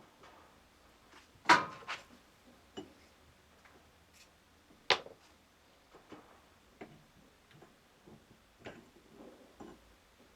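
Scattered light metal clicks and taps from handling the parts of a universal joint while fitting its cross into the driveshaft yoke. Two louder, briefly ringing clinks come about one and a half seconds in and about five seconds in.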